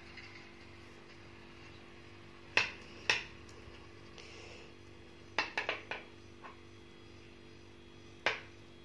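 Metal knitting needles clicking as a row of stitches is knitted: scattered short sharp clicks, with a quick run of four about halfway through, over a steady low hum.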